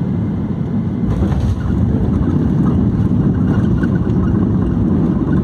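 Airliner cabin noise during the landing roll: a loud, steady low rumble of the wheels on the runway and the engines, growing heavier about a second in.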